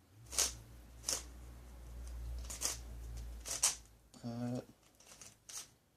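A few sharp plastic clicks, about five spread irregularly, from a twisty puzzle cube being handled and turned, over a low rumble that fades out after about four seconds.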